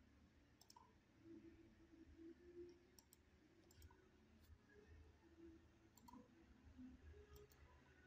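Faint computer mouse clicks, about half a dozen spread irregularly, over a quiet low room hum.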